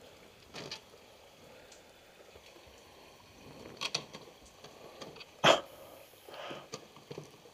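Handling noise from a handheld camera being moved: scattered short knocks and rustles over a faint steady hiss, the loudest a sharp knock about five and a half seconds in.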